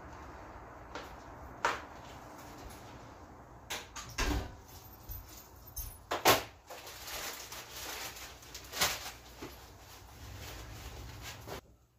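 An apartment front door opening and closing, followed by footsteps, rustling and several sharp knocks and clatters as someone comes in and sets things down. The loudest knock comes about six seconds in, and the sound cuts off suddenly just before the end.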